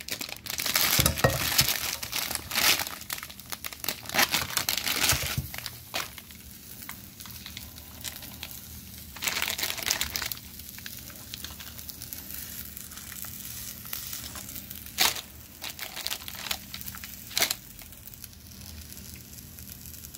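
Plastic food packaging crinkling in bursts as it is handled, with two sharp clicks in the second half.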